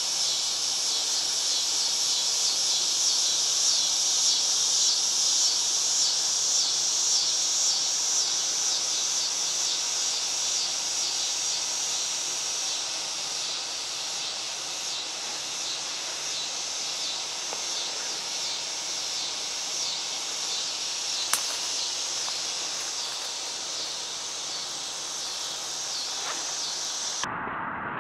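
Steady high-pitched buzzing chorus of insects, pulsing rapidly, easing off somewhat in the second half. A single sharp click about 21 seconds in, and near the end the sound changes abruptly to a duller background.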